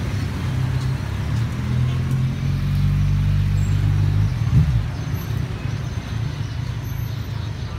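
Street traffic: a motor vehicle's engine hums steadily close by, then drops away about four seconds in, leaving a continuous low road rumble.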